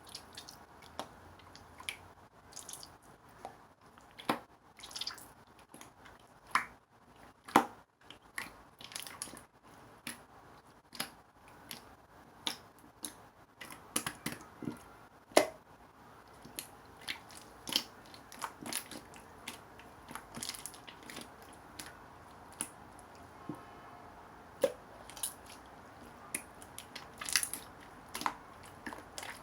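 Black marbled slime being played with by hand, making irregular short sticky clicks and squishes.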